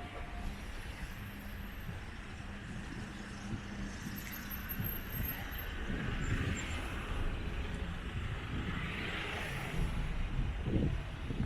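Road traffic: cars driving past, their tyre and engine noise swelling around the middle and again near the end over a steady low rumble.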